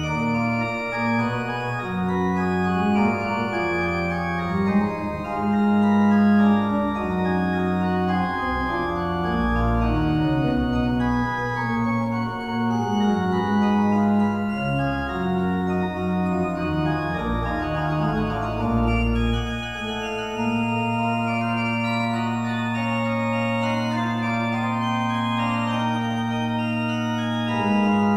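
Organ music: slow sustained chords moving every second or two, settling into a long held chord over a low bass in the last third.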